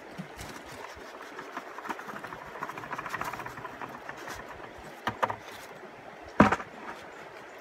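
Steady rush of river water under the crackle and rustle of a person moving on a snowy, rocky riverbank. Several sharp knocks come in, the loudest about six and a half seconds in.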